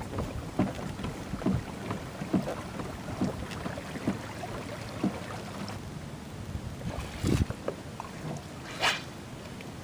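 Water lapping and slapping against a kayak's hull in short strokes about once a second, with wind on the microphone. A couple of louder short hissing splashes come near the end.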